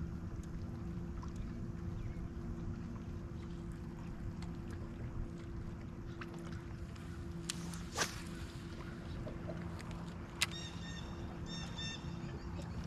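Fishing kayak sitting on the water: low, steady water and wind noise with a faint hum. There are two sharp knocks, about eight and ten and a half seconds in, and a few short high chirps near the end.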